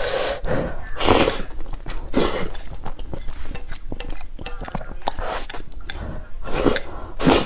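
Spicy noodles being slurped and chewed close to the microphone, in a string of short, noisy slurps about a second apart with quieter chewing between them.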